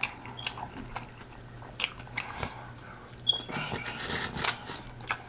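Close-up eating sounds of someone chewing and biting food: irregular wet mouth clicks and smacks, with a brief high squeak about three seconds in.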